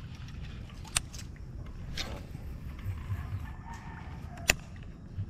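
A few sharp clicks from handling a baitcasting rod and reel, the loudest about four and a half seconds in, over a low steady background.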